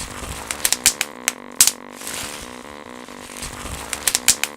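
Bubble wrap bubbles popping in irregular sharp clicks, a cluster of about seven pops early on and another quick run of pops near the end, over soft background music with held tones.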